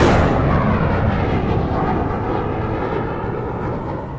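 Jet aircraft roar, a sound effect in a channel intro, fading away steadily.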